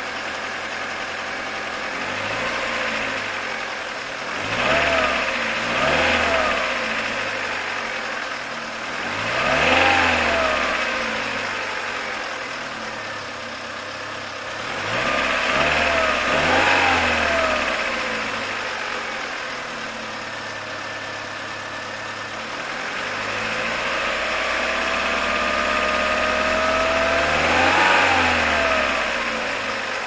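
1997 Mercedes-Benz A-Class four-cylinder petrol engine idling and being revved: short blips about four, six, ten and sixteen seconds in, then a slower, longer rev that builds and peaks near the end before dropping back to idle.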